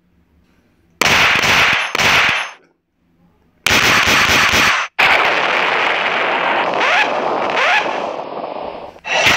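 Sound effects: after about a second of silence, two short, harsh noise bursts, a pause, a longer burst, then a long noisy stretch with two quick rising whistles in it that fades away near the end.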